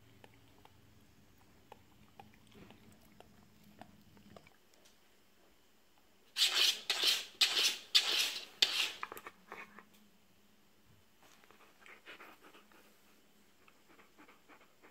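Akita Inu breathing hard in a quick run of loud, noisy puffs, about three a second, for some three seconds midway, with fainter puffs again near the end.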